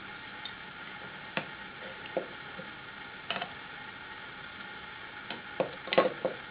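Scattered wooden knocks and clicks as parts of an all-wood tabletop printing press are handled and fitted together: single knocks spaced a second or so apart, then a quick cluster near the end, the loudest of them just before it stops. A steady hiss lies under them.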